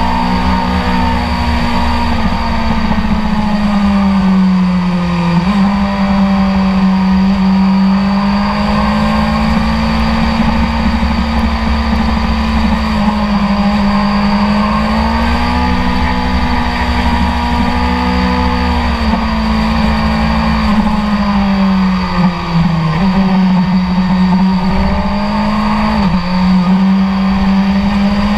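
BMW S1000RR's inline-four engine heard onboard at track speed. Its pitch rises and falls with the throttle and steps abruptly a few times at gear changes.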